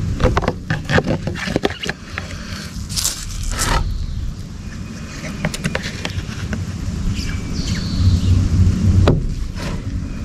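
A thin plastic food container is handled and set down, giving a run of sharp clicks and crinkles, with a longer scrape about three seconds in and another click near the end. Under it runs a steady low rumble.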